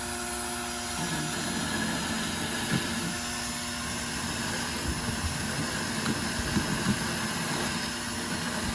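Cordless drill running in reverse at low gear, its hole saw grinding against a taut 11 mm nylon rope under a 100 kg load and abrading through it. A steady motor hum with a rough scraping rasp and scattered ticks from about a second in.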